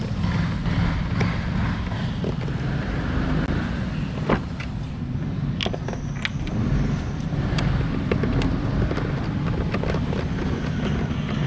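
A steady low rumble throughout, with scattered sharp clicks and taps of intake pipe parts and the MAF sensor being handled and fitted, the clearest about four and six seconds in.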